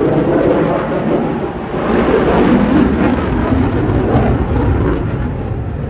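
Loud rumbling jet noise from an F-22 Raptor's two afterburning turbofan engines as it flies past, swelling about two seconds in and slowly easing toward the end.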